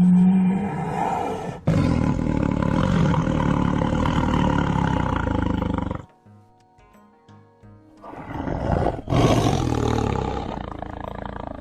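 Bengal tiger roaring in long, rough bouts, with a pause of about two seconds in the middle, over background music.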